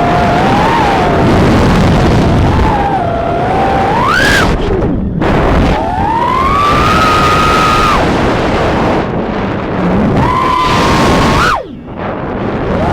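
Motors and propellers of a 3-inch FPV quadcopter whining in flight, the pitch rising and falling as the throttle is worked: a climb and quick drop about four seconds in, a long held high note, then a sharp punch and abrupt cut near the end. A heavy rushing noise runs underneath.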